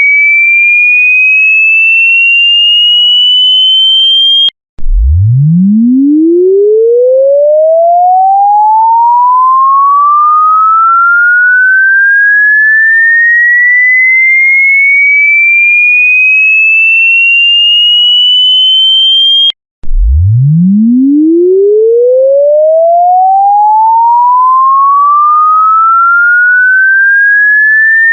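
An electronic pure tone sweeps slowly upward in pitch, from a deep hum to a high whistle over about fifteen seconds. It then breaks off and starts again from the bottom, and it restarts this way twice.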